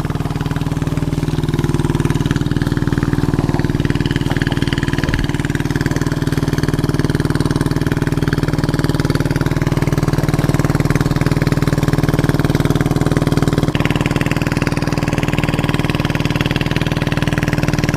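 A small engine running steadily at an even pitch, with no revving.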